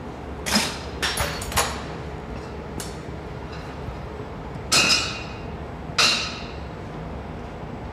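Metal clanks and clinks from tools or sheet-metal pieces being handled: a few quick ones in the first two seconds, then two louder, ringing clanks about five and six seconds in.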